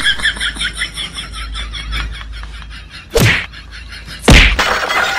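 Added comedy sound effects: a fast run of short ticks, then two loud slap hits about a second apart, the second the louder.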